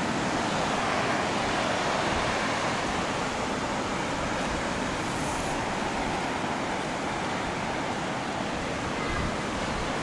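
Mediterranean surf breaking on a sandy beach: a steady, continuous wash of wave noise.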